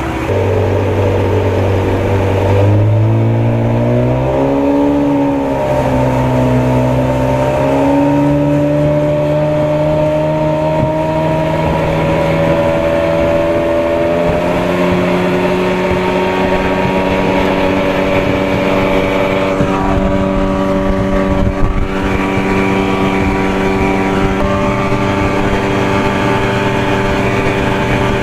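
1987 Johnson 40 hp two-stroke outboard driving the boat at speed: its pitch climbs in steps over the first several seconds, wavers as the boat bounces over rough chop, steps up once more, then holds steady near top speed.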